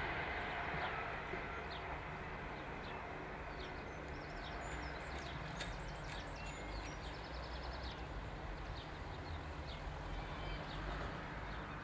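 Small birds chirping and trilling over a low, steady outdoor rumble of road traffic, with the noise of a just-passed train dying away in the first couple of seconds.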